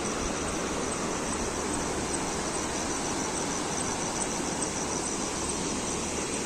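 Insects chirping in a high, evenly repeating pulse over a steady rushing hiss of a rain-swollen mountain stream.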